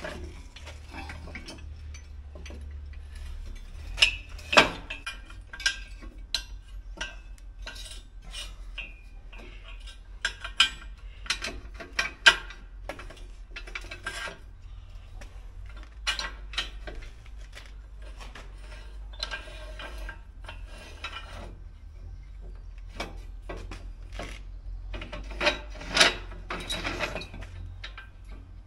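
Metal clinks, rattles and scrapes from an adjustable steel prop being handled and wound up tight under a wall bracket, with a few sharper clanks among them. A steady low hum runs underneath.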